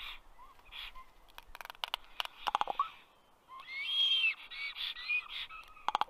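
Common raven making its clicking calls: runs of rapid sharp clicks, some ending in a short rising note, heard several times. A longer, louder rough call with squeaky gliding notes comes in the middle.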